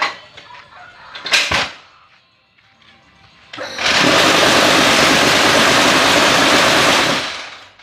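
Hydraulic paving-block and brick press machine running: a short burst of noise just over a second in, then a loud, steady mechanical noise that starts about three and a half seconds in and fades out near the end.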